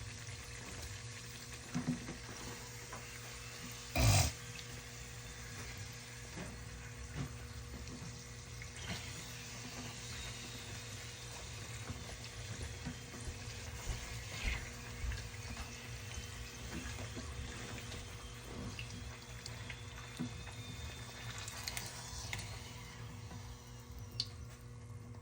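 Fried bake dough frying in hot oil: a steady, faint sizzle, with one sharp knock about four seconds in and a few light clicks from the utensils and pan.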